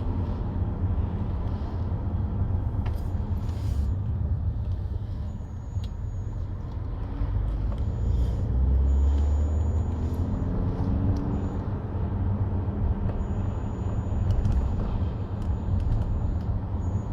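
Cabin noise of a moving car: a steady low rumble of engine and road, with the engine note rising briefly around the middle.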